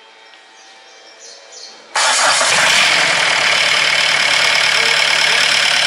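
Diesel engine started about two seconds in and then running loudly. The engine has a harsh running noise that is being cured by adjusting the injection pump timing.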